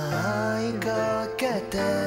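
Background music: sustained melodic notes with some sliding pitches, and two sharp percussive hits about a second apart.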